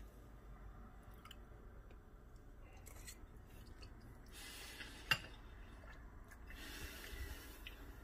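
Faint chewing as food is tasted, with one sharp click about five seconds in and a couple of short rushes of hiss.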